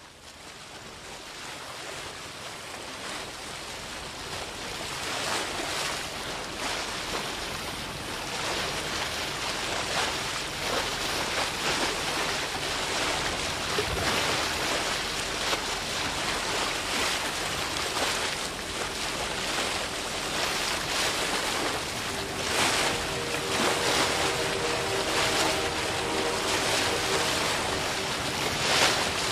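Sea surf sound, a steady rushing wash that fades in from quiet and slowly grows louder. Near the end a few steady held low tones join in.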